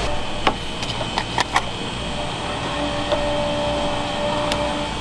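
Steady low mechanical hum of kitchen equipment, with a few sharp clinks of dishes: several in the first two seconds and one more near the end.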